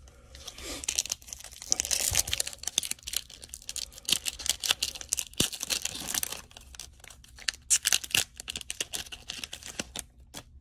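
Foil trading-card pack wrappers being torn open and crinkled by hand: a run of crackling rips, loudest about two, five and eight seconds in.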